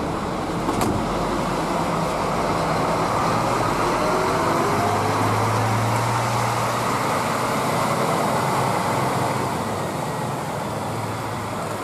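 Scania K360IB coach pulling away close by, its engine and road noise swelling as it moves past and easing off slightly near the end.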